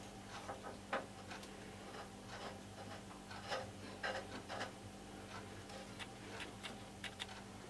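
Faint, scattered clicks and light scrapes of small metal parts being handled and test-fitted at a motorcycle's handlebar clamp, over a steady low hum.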